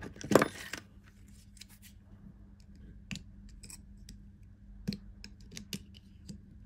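A thin steel pick poking and scraping inside the bore of a Starrett No. 657 magnetic stand's metal body, light metal-on-metal clicks and scratches. There is a louder clatter in the first second as the body is handled, then scattered single sharp clicks.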